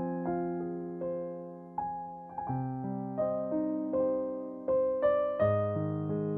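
Background music: a slow piano melody, single notes and chords struck about once or twice a second, each fading before the next.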